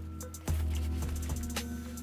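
Background music with a deep bass note and a steady beat of sharp percussive ticks.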